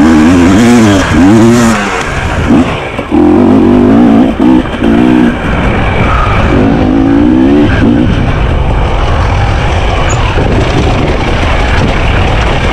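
Enduro motorcycle engine revving up and down as the bike is ridden off-road, the throttle opening and closing several times with short breaks, then running more steadily for the last few seconds.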